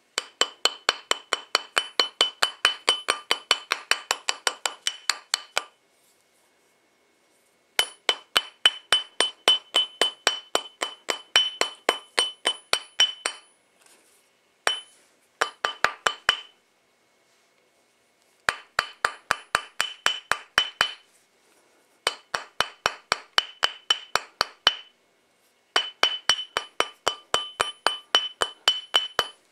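A small hammer tapping rapidly and lightly on metal, about five taps a second, each tap ringing with a clear metallic tone, as in shaping a ring. The tapping comes in several runs of a few seconds each, with short pauses between.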